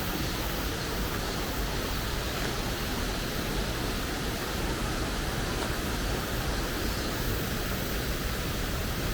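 Steady rushing of a stream.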